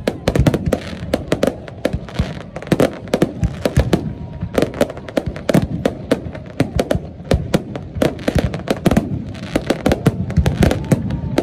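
Fireworks display with aerial shells bursting in rapid, overlapping bangs, several a second, over a continuous low rumble.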